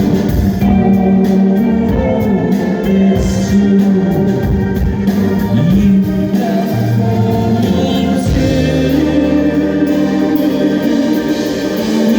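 Live rock band playing a pop song: a lead vocal over organ-style keyboard, guitar and a steady drum beat.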